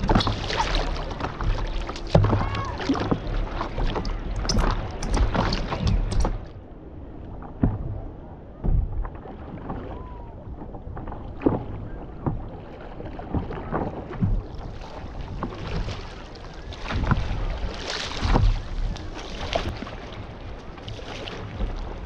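Stand-up paddleboard paddle strokes dipping and pulling through sea water, with irregular splashes and wind rumbling on the microphone. Loudest in the first six seconds, quieter in the middle, louder again later on.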